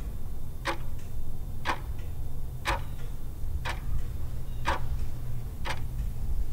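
A clock ticking steadily, one tick a second, over a low rumble.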